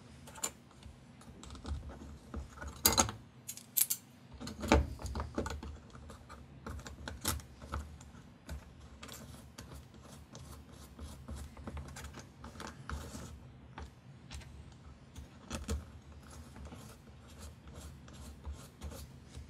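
Irregular small clicks, taps and rattles of hands handling small screws, a hex key and plastic parts against a carbon fibre drone frame on a cutting mat, with a few louder knocks about 3 and 5 seconds in.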